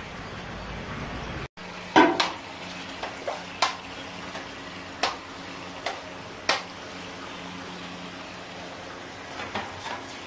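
Metal ladles and a skimmer knocking and clinking against a large cooking pot as pieces of head and trotter meat are stirred and lifted from simmering broth. The clinks are irregular, the loudest one about two seconds in, over a steady low hum.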